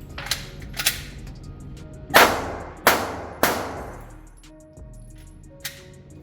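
Pistol gunfire: two fainter shots in the first second, then three loud shots in quick succession about two seconds in, each trailing off with echo.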